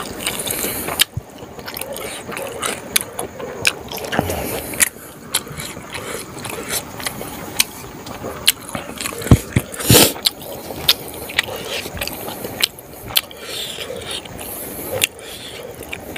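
Close, wet chewing and lip-smacking of a mouthful of smoked pork and rice, with irregular sharp mouth clicks throughout and a louder thump about ten seconds in.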